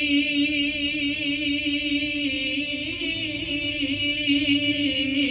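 A man's solo voice, unaccompanied, singing a Punjabi hamd (devotional verse in praise of God). He draws out long held notes with a wavering ornament, and the note lifts briefly about three seconds in.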